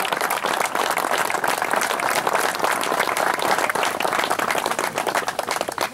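A crowd of guests applauding steadily, with one person clapping close by.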